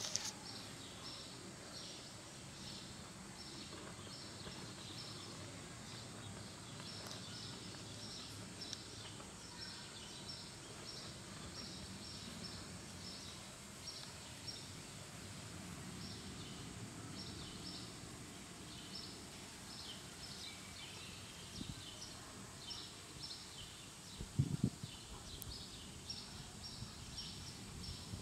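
Outdoor background of short, high-pitched chirps repeating a couple of times a second, with one brief thump about 24 seconds in.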